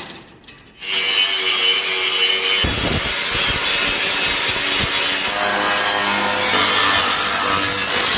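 A power tool starts working about a second in and then runs steadily with a loud, rasping sound.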